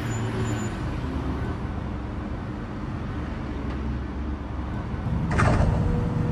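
Engine sound effect of an animated fire truck running steadily as it drives, with a short hiss about five seconds in.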